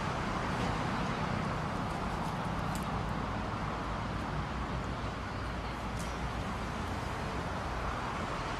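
Steady outdoor ambience: a constant hum of distant city traffic, with a few faint high chirps.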